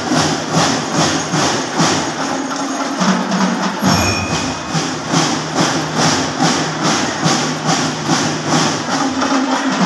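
Drum and lyre corps playing: drums beating a steady, fast marching rhythm of about two and a half strokes a second, with a few bright bell-like lyre notes about four seconds in.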